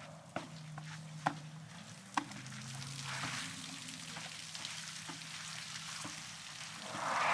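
Elephant walking: a few sharp snaps in the first two seconds over a soft crackling, rustling background with a faint low steady tone, and near the end the start of a loud elephant snort.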